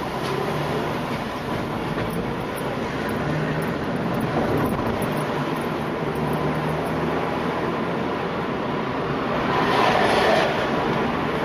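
Streetcar running close alongside, heard from inside a moving car over the car's steady road noise. A louder rushing swell about ten seconds in as a streetcar passes close by.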